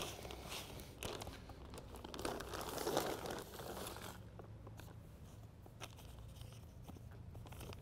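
A plastic bag crinkling and rustling as it is handled, loudest about three seconds in and quieter after about four seconds.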